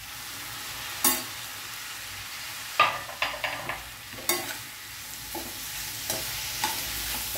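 Chopped tomatoes, onion and capsicum frying in a stainless steel pan, a steady sizzle, while a steel spoon stirs them, clinking and scraping against the pan again and again.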